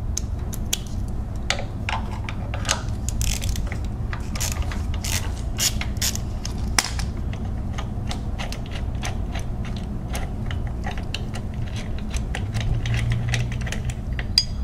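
Hand ratchet clicking in short irregular runs as a socket on an extension backs out a long AC compressor bracket bolt, over a steady low hum.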